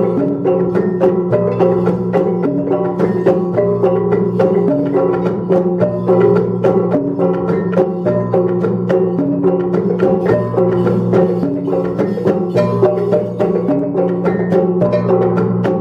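Traditional Dayak dance music: a repeating melody of short notes over a steady low drone, with a quick, continuous percussive beat.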